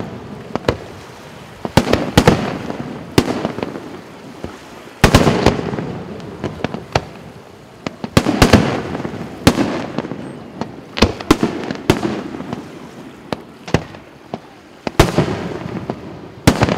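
Aerial firework shells bursting: more than twenty sharp bangs, irregularly spaced and sometimes two or three in quick succession, each trailing off in an echoing tail.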